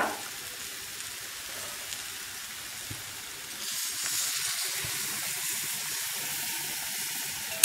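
Spiced shallots, garlic and turkey berries sizzling softly in oil in a stone pot. About three and a half seconds in, tamarind water is poured in, and a louder, higher hiss of the liquid hitting the hot masala takes over.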